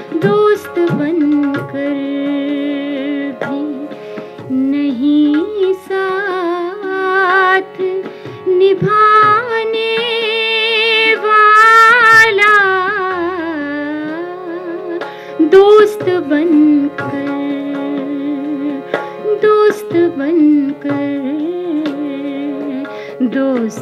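A woman singing a ghazal in long, wavering, gliding notes, to her own harmonium accompaniment, whose held chords sound steadily underneath.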